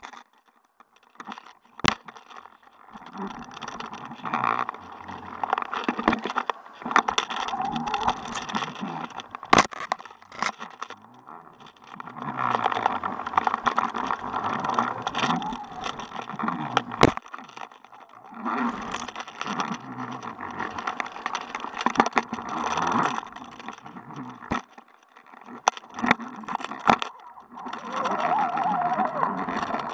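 Muffled underwater noise picked up by an action camera in its waterproof housing on a jigging line, swelling and fading in surges every few seconds. A few sharp knocks and rattles come from the housing and rig.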